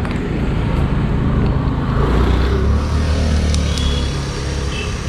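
Road traffic: a motor vehicle's low engine rumble swells about two seconds in as it passes, then eases off.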